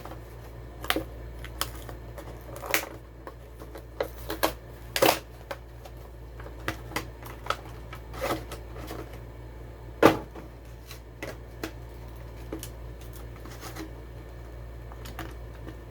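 Toy car packaging being handled and opened by hand: scattered clicks, crinkles and snaps of plastic and card at irregular intervals, the loudest snap about ten seconds in.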